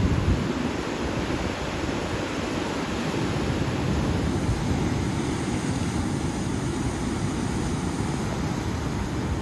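Ocean surf breaking and washing through channels between rock ledges: a steady rushing of churning seawater.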